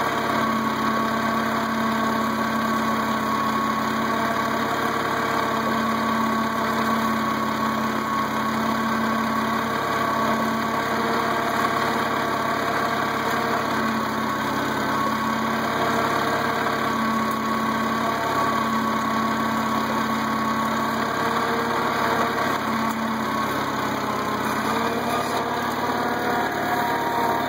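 International Cub tractor's four-cylinder engine running steadily at a constant speed as it pulls a cultivator through the rows, its note shifting slightly near the end.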